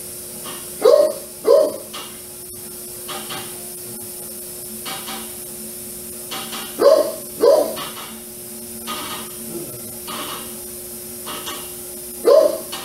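A dog barking in double barks, "woof-woof", about every five and a half seconds, over a steady hum.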